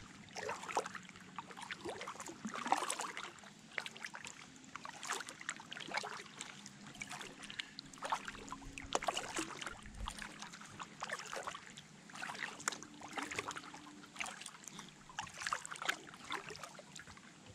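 Kayak paddle blades dipping into the lake water, splashing and dripping, stroke after stroke in an uneven rhythm.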